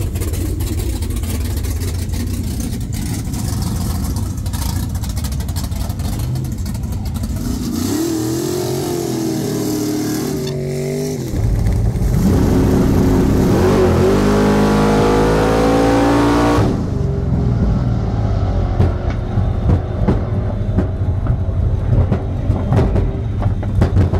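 Big-block V8 of an OBS Chevrolet drag truck idling with a steady low rumble, then revved up and down a few times. About twelve seconds in it goes to a louder full-throttle run, the pitch climbing for about five seconds before it drops away.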